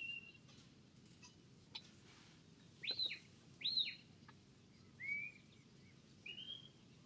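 Shepherd's whistle commands to a working sheepdog: a short level note at the start, two quick whistles that sweep up and back down about three seconds in, then two shorter sliding notes near the end.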